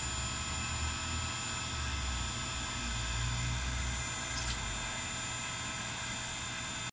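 Steady machine hum with several constant high tones over a low, wavering rumble, and a brief tick about two-thirds of the way through.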